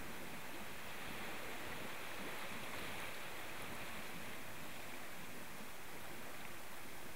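Small waves washing onto a pebble beach: a steady seaside hiss that swells a little a couple of seconds in.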